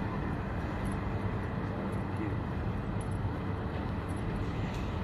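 Steady street traffic noise: an even, constant rumble and hiss of vehicles with no single event standing out.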